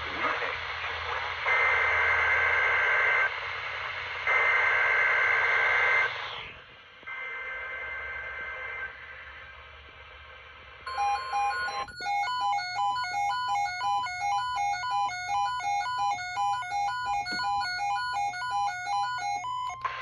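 Hissy NOAA weather radio reception on a handheld Midland GXT radio carrying three squawking bursts of SAME digital header data, two alternating tones marking an emergency alert test. About eleven seconds in, a brief steady tone gives way to a fast two-pitch electronic alert beeping that runs for about eight seconds and then cuts off.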